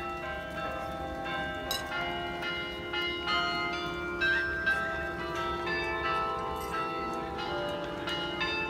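Carillon bells in Cologne's city hall tower playing their three o'clock melody, with many bell notes struck one after another and ringing on over each other.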